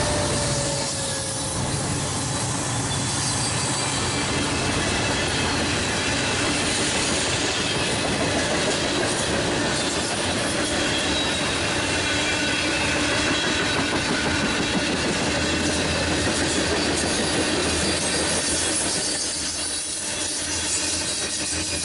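A long Norfolk Southern freight train's cars rolling past at speed: a steady rumble and clatter of steel wheels on rail. The trailing diesel locomotive's engine sound fades out in the first couple of seconds.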